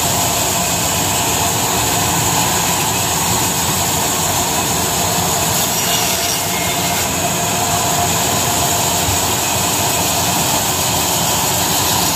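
Belt-driven band saw running steadily, its blade cutting lengthwise through a log.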